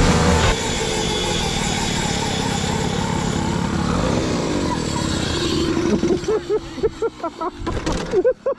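Pocket bike's small engine running hard as the mini bike laps the track, its pitch rising and falling with the throttle. From about six seconds in the engine note drops away as the bike slows, and voices come in near the end.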